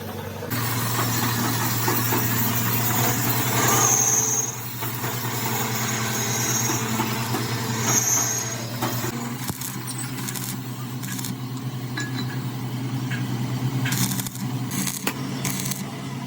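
Workshop machine running with a steady low hum, under a loud rushing noise of work for about the first nine seconds, then a run of sharp clicks and knocks.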